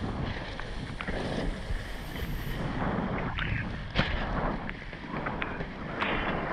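Wind buffeting the microphone over the rush of water under a planing slalom windsurf board, with repeated short slaps and splashes as the hull hits the chop. The sharpest slap comes about four seconds in.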